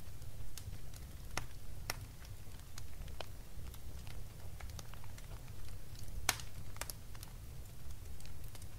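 Fire crackling in a fireplace: sparse, irregular pops, the sharpest a little past the middle, over a low steady rumble.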